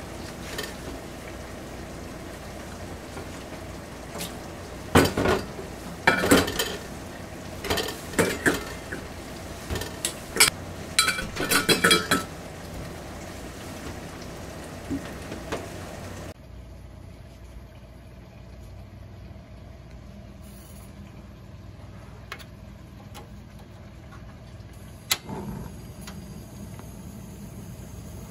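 Stainless-steel bowls and a mesh strainer clinking and knocking in a run of sharp clatters as chopped greens are squeezed and portioned by hand. After a sudden drop about sixteen seconds in, the steady hiss of a cassette gas stove's burner flame under a pot, with one sharp click near the end.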